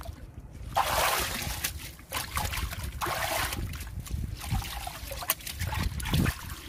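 Hands swishing and squeezing through a tub of water mixed with rice bran and makgeolli, stirring it so the mix dissolves. The water splashes and trickles in irregular bursts.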